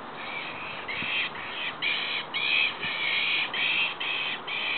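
Stuffed toy monkey's built-in monkey scream, set off by a Doberman's jaws: a run of shrill, screeching calls, about two a second.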